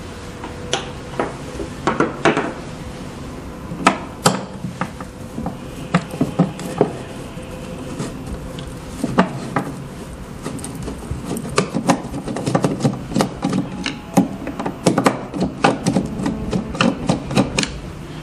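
A screwdriver turns out screws from the plastic cover of a 3D sublimation vacuum heat press, making irregular clicks, scrapes and knocks. The knocks come more often in the second half.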